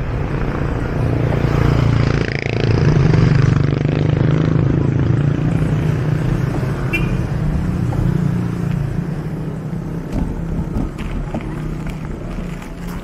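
Road traffic: motor vehicle engines passing close by, loudest about three seconds in and easing off toward the end.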